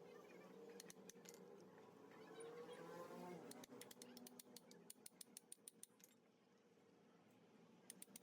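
Faint, quick metallic clicking from hand-tool work on a washing machine's spin motor: a few scattered clicks, then a fast run of about eight clicks a second lasting a couple of seconds from about halfway in.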